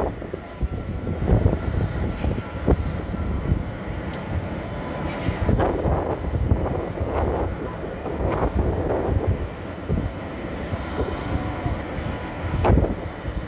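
Boeing 767 jet engines at taxi power: a steady low rumble with a faint whine. Uneven gusts of wind buffet the microphone.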